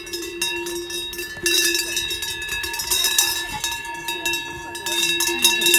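Cowbells ringing and clanking without pause, a held metallic tone under many clapper strikes. It gets louder about a second and a half in.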